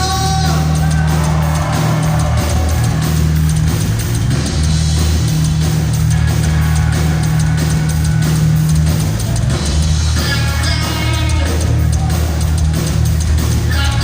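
Live heavy rock band playing an instrumental passage with no singing: a steady drum kit, bass and electric guitar, with a guitar melody coming in about ten seconds in.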